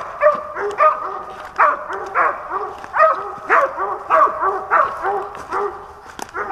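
Squirrel hounds barking treed: steady, repeated barks, about two a second, the sign that the dogs have a squirrel, or its den, located in a tree.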